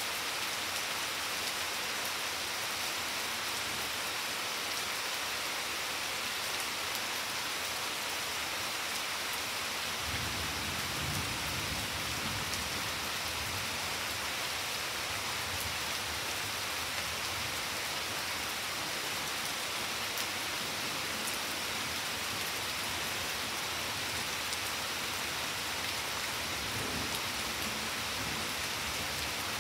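Steady rain falling on garden foliage and a wet flagstone patio, with a low rumble of thunder joining in about ten seconds in.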